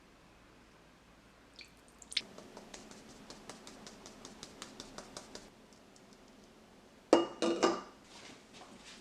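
Kitchen utensil working in a mixing bowl: light regular ticks about four a second, then a few louder ringing clinks of metal or glass near the end.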